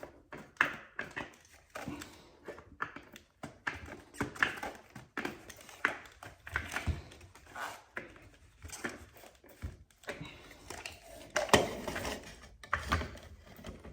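Irregular small plastic clicks, taps and knocks as a Dyson V6 cordless vacuum's cleaner head is handled and unscrewed with a screwdriver.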